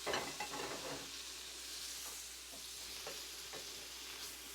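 Chicken breast sizzling on a very hot ribbed griddle under a grill press: a steady frying hiss, louder in the first second, with a few faint clicks.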